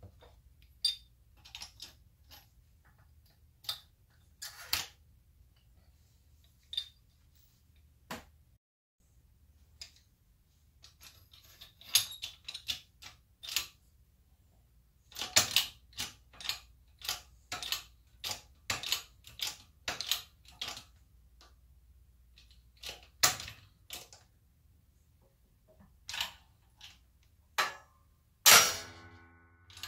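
A eucalyptus wood blank squeezed in a hydraulic bottle-jack press, giving off irregular sharp clicks and small cracks as the load builds. Near the end the wood gives way with a longer, louder cracking snap.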